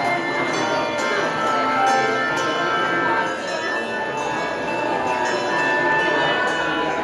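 Handbell choir playing a tune: bells struck in turn about every half second, their tones ringing on and overlapping.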